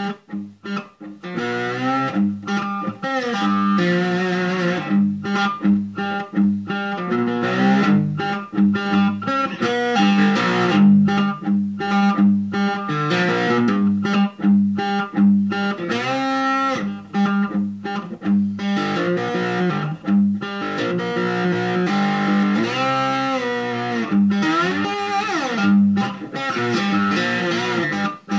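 Three-string guitar being played: picked notes over a steady low drone note, with a few notes sliding in pitch in the last third.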